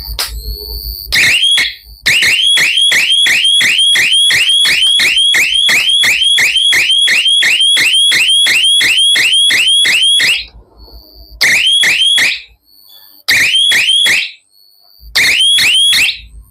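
Solar fence energizer's built-in electronic siren sounding: a fast run of rising whoops, about four a second, starting about a second in, running for some eight seconds, then coming back in short spells. It sounds after its two wires were swapped at the C/T terminals, the fix for a siren that stays silent.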